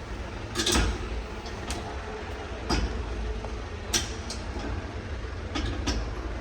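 A series of sharp knocks and clatters, the loudest about a second in and others spaced irregularly after it, over a steady low rumble.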